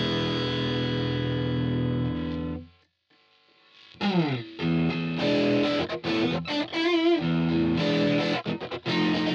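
Squier Affinity Stratocaster played through a Line 6 POD HD500 with distortion. A held chord rings and is cut off abruptly; after a brief silence, a downward slide leads into choppy rhythm chords with short stops and a wavering note in the middle.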